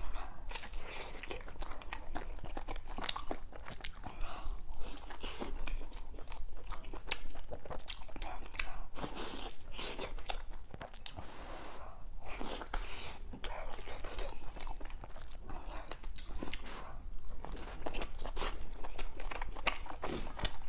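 A person eating close to the microphone: steady, irregular biting and chewing mouth sounds.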